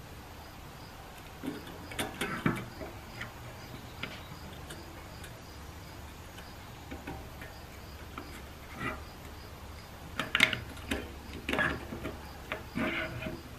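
Irregular clicks and light knocks of hand tools and small metal parts being handled during work on a 47RE transmission valve body, with clusters of clatter about two seconds in and again from about ten seconds on. A faint, even ticking about twice a second and a low steady hum run underneath.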